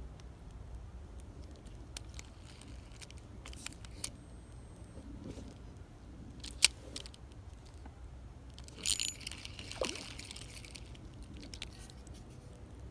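Hands handling a light spinning rod and reel close to the microphone: small clicks and metallic clinks, one sharp click a little past halfway, and a brief scratchy rustle about two-thirds of the way through.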